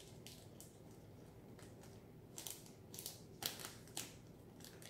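A clear plastic gift bag crinkling in a few short, faint rustles as hands work a ribbon around its gathered neck, mostly in the second half.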